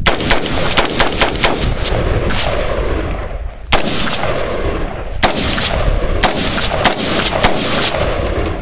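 AR-15 pistol with a 10¼-inch barrel firing semi-automatic: a quick string of shots in the first second and a half, then single shots roughly a second apart, each trailing a long echo.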